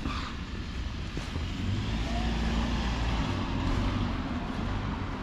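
A motor vehicle's engine passing close by: a low hum that swells to its loudest about halfway through, then eases off.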